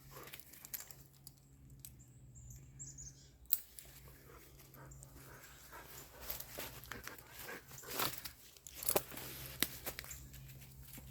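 A dog playing tug with a rope toy: faint scuffling and rustling, with scattered sharp clicks.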